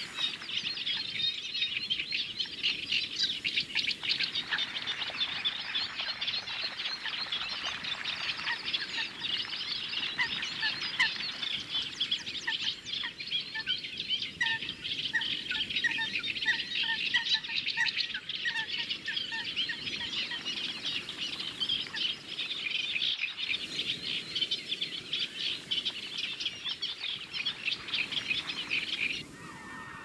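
Dense chorus of high-pitched chirping and peeping bird calls. For several seconds in the middle, a run of evenly spaced lower calls, about two a second, sounds beneath it. The chorus cuts off suddenly just before the end.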